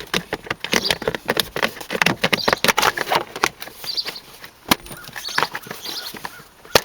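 Plastic corner kick-plate trim being handled and pressed back into place over the bonnet release latch: a run of irregular small plastic clicks, taps and rustles, with a sharp snap a little under five seconds in and another near the end.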